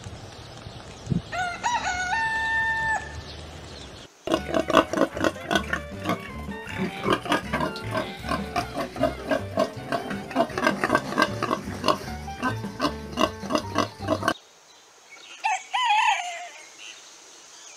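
A rooster crows once near the start. From about four seconds in, a pig squeals and grunts rapidly for about ten seconds, then stops abruptly. Near the end a hen gives a short call.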